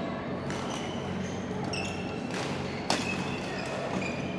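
Badminton doubles rally: rackets hitting a shuttlecock and shoes squeaking on the court floor, over a steady low hum. The sharpest, loudest hit comes about three seconds in.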